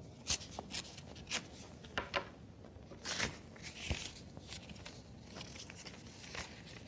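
Quiet handling of a paper letter as it is opened: light rustling, with scattered soft clicks and taps and a short burst of rustling about three seconds in.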